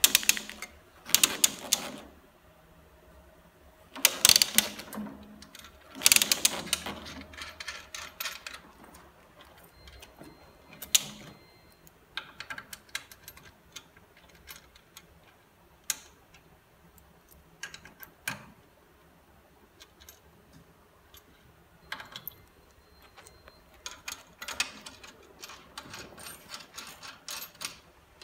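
Metal parts of an exercise bike being handled and fitted: rattling clicks and taps from the upright post, its knob and the frame joint. There are three loud bursts in the first eight seconds, scattered single clicks after them, and a busier run of clicks near the end.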